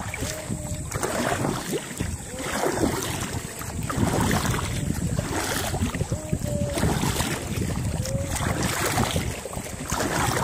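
Kayak paddle strokes swishing and splashing through the water in a repeating rhythm, with wind buffeting the microphone.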